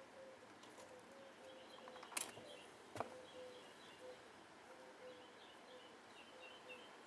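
Near silence with faint bird chirps in the background, broken by two sharp clicks about two and three seconds in.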